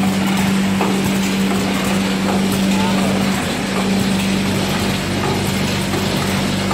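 Screw-feeder weighing and vertical form-fill-seal packing machine running: a steady hum with light mechanical clatter from its moving parts.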